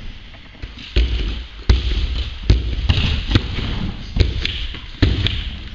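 Spring-loaded jumping stilts (powerisers) thudding in a run of hard impacts, about one every 0.8 s.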